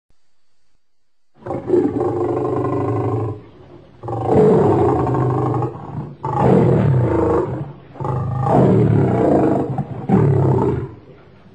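A lion roaring: after a short quiet start, a run of five long, loud roars, each a second or two long, with brief breaks between them.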